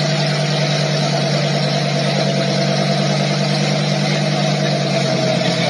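Lamborghini Huracán V10 engine idling steadily, a constant low hum over exhaust hiss.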